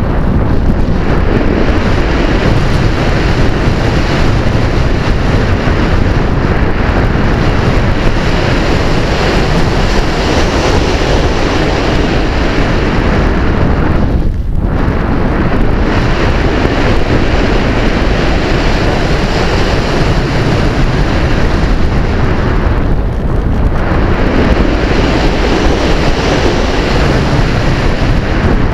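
Airflow rushing over the microphone of a camera riding on a model glider in flight: a loud, steady wind rush with no engine tone. It thins out briefly about halfway through and again about three-quarters of the way through.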